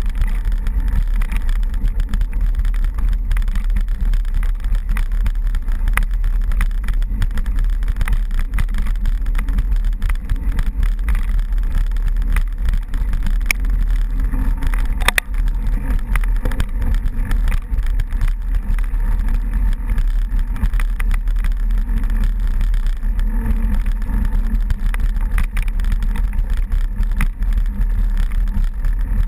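Steady drone and rumble of a motor vehicle running along a dirt trail, heard through a camera mounted on the vehicle.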